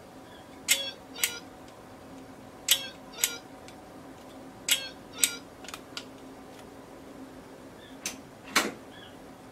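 Digital kitchen timer in a novelty gingerbread-house case sounding its alarm after counting down to zero: pairs of short beeps about half a second apart, repeating every two seconds, three times. Near the end come two knocks, the second one the loudest sound.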